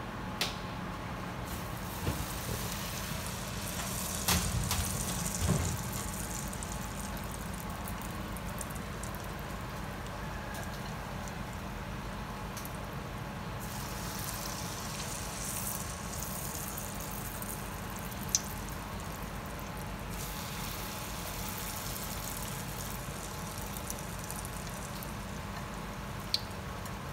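Spring rolls (chả giò) deep-frying in a wok of hot oil: a steady sizzle and bubbling, louder for a couple of seconds about four seconds in, with a few sharp clicks.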